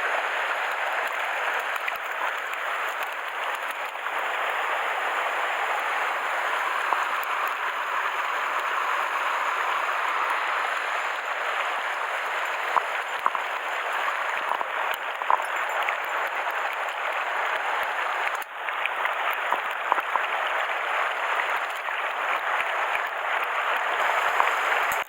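Mountain stream water rushing steadily, with a short dip in the sound about three-quarters of the way through.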